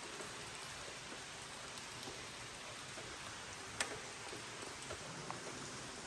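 Steady, faint hiss of water running and dripping inside a cave, with one sharp click about four seconds in.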